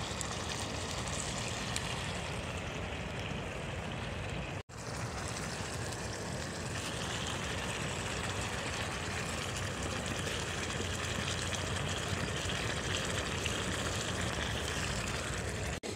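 Pot of beans and peppers in oil and water simmering on a wood-fired folding stove: a steady bubbling hiss. It cuts out briefly about five seconds in.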